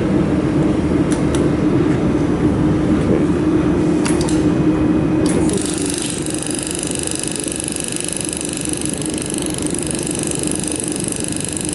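Laser mould welding machine at work: a steady low hum with a few sharp clicks, then about five and a half seconds in a steady high buzz sets in and the low hum drops a little.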